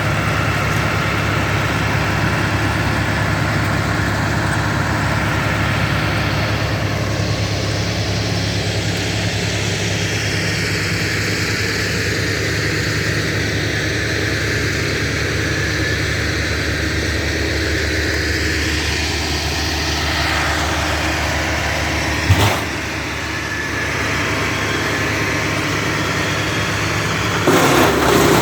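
An engine runs steadily, with one sharp knock about 22 seconds in.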